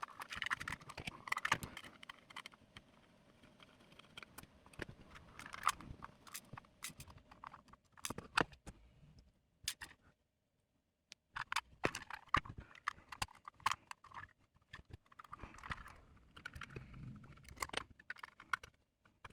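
Irregular small clicks, taps and rustling as 3D-printed plastic parts of a robot arm base are handled and fitted together, stopping for about a second near the middle.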